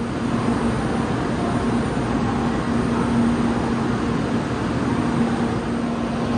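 Steady rumble and hum of a Tokaido Shinkansen train, with a low hum that swells and fades.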